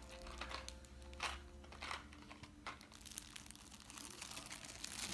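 Plastic Halloween treat bag crinkling faintly as a small child rummages inside it for candy, in scattered crackles that grow busier over the last two seconds.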